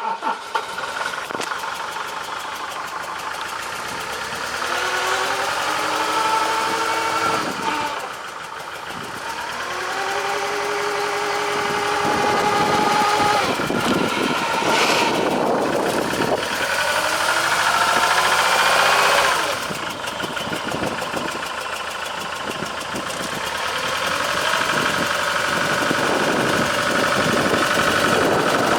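Iveco F1C 3.0-litre four-cylinder diesel of a Boki HY1251 utility vehicle running, its speed rising and falling several times and getting louder in the middle. The engine rattles and is down on power.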